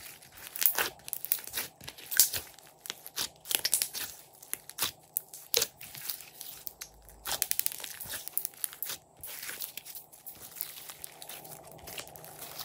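A large batch of glossy slime being squeezed, stretched and folded by hand, giving a run of irregular sharp pops and crackles, some in quick clusters.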